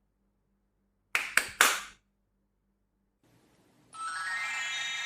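Three sharp clicks in quick succession, each with a short ring, then a little later a bright tone with many overtones that sweeps upward and holds for over a second, like an intro sound effect.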